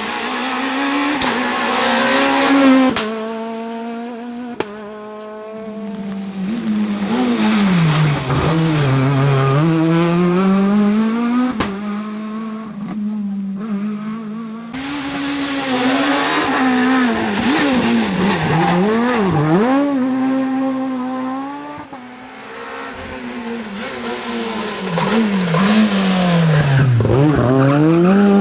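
Renault Clio S1600 rally car's high-revving naturally aspirated 1.6-litre four-cylinder at full effort on a stage, revs climbing and dropping sharply through gear changes and lifts for corners. The sound fades about halfway through, then cuts back in abruptly.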